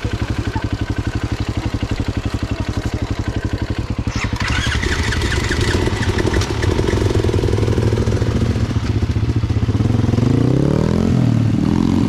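Dirt bike engines idling with a steady, fast firing beat, then revving and rising in pitch as the bikes pull away. A short run of clicks about four seconds in.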